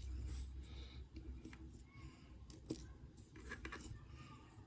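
Faint, scattered small metallic clicks and ticks as the pins and springs are picked out of a Zeiss Ikon cylinder padlock's pin chambers during disassembly.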